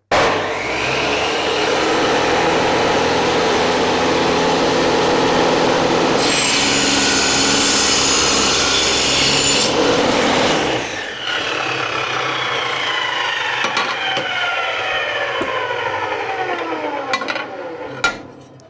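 Bench saw with a 100-tooth blade cutting a 6 mm aluminium plate. The saw runs steadily, and the blade grows louder and harsher as it bites through the metal for about three seconds in the middle. Then it winds down with a falling pitch after being switched off.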